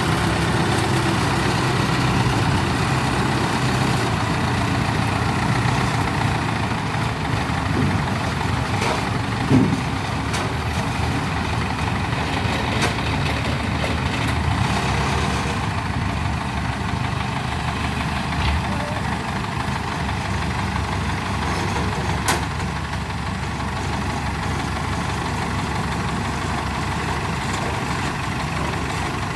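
Heavy diesel engine of a combine harvester running steadily at low speed, with a couple of short knocks.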